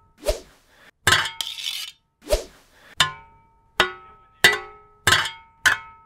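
Makeshift foley for a sword fight: a rapid series of about eight sharp hits, some a metallic clank with a short ring, others a duller hollow knock.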